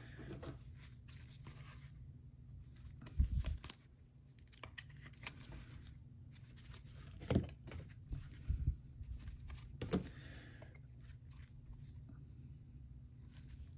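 Soft rustling and sliding of trading cards and their packaging being handled and sorted, with a few sharper taps as cards are set down.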